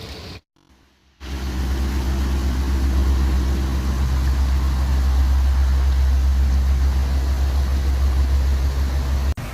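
An engine running at a steady speed: a loud, even low hum over a rushing noise. It starts after a brief silence about a second in and stops abruptly near the end.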